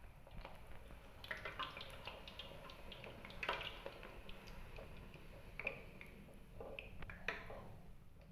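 A puri deep-frying in hot oil: faint, irregular crackling and popping, with a few sharper pops.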